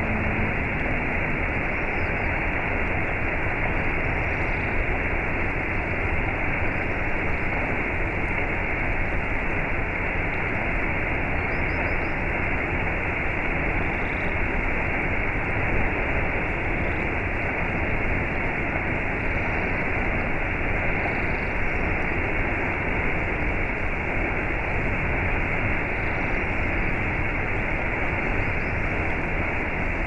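Small waterfall pouring over a rock ledge and splashing into a shallow rocky pool, a steady, unbroken rush of falling water.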